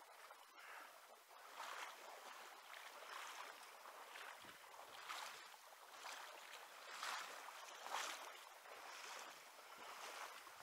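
Faint water sloshing in soft swishes about a second apart, from wading through a shallow river.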